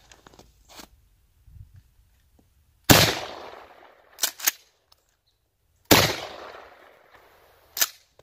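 Pump-action 12-gauge shotgun firing deer slugs: two loud shots about three seconds apart, each trailing off in a long echo. After the first shot the pump is worked with two sharp clacks, and another clack follows after the second shot near the end.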